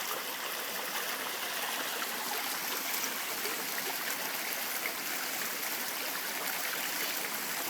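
Water pouring steadily over a natural-rock pond waterfall and running down its stream, a constant splashing hiss.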